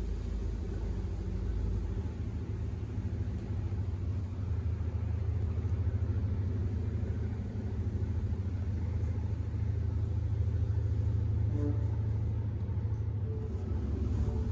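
A steady low engine-like rumble with a droning hum, holding on throughout without letting up.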